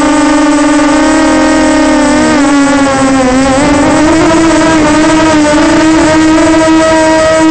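Walkera Runner 250 quadcopter's brushless motors and propellers whining loudly and steadily, heard close up through its onboard camera. The pitch dips and wavers about two to three seconds in, then rises a little as the throttle changes.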